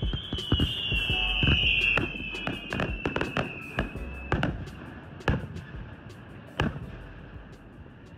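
Fireworks bursting: a run of sharp bangs that come thick at first, then thin out to a few isolated reports as the sound fades. A wavering high whine sounds over the bangs through the first half, then dies away.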